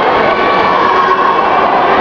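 Loud, steady crowd noise of many voices and spectator chatter filling a large sports hall.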